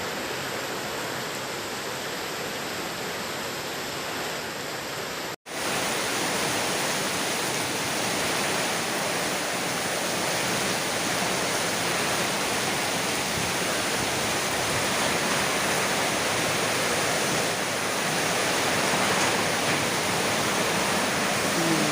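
Heavy rain pouring down in a steady, dense hiss. About five and a half seconds in the sound cuts out for an instant, then comes back a little louder.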